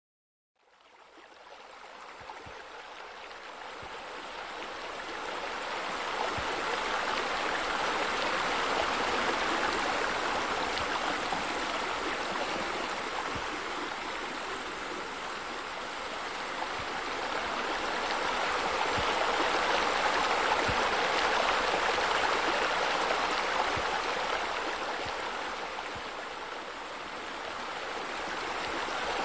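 Running, splashing water of a fountain pool, with water spilling over walls. It fades in from silence about half a second in, builds over the next few seconds, then swells and eases in loudness.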